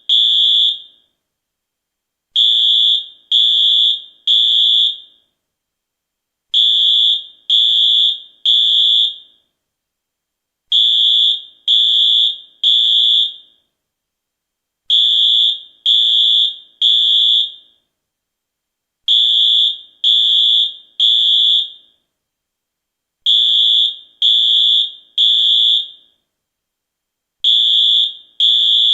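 US fire alarm sounding its high-pitched beep in repeating groups of three, each group followed by a pause. This is the temporal-three evacuation signal.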